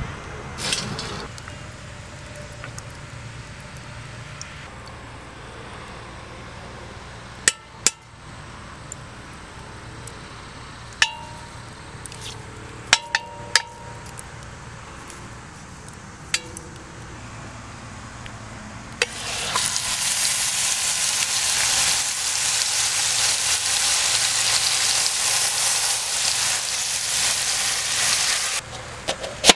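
A few sharp metal clinks from the cast-iron Dutch oven, then about 19 seconds in a loud, steady sizzle as a rubbed pork shoulder is laid into hot fat in the pot, running for several seconds before cutting off near the end.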